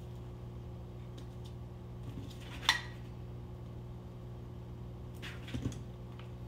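Work noises from wires being pulled through a distributor housing: one sharp metallic click about two and a half seconds in and a few softer clicks near the end, over a steady low hum.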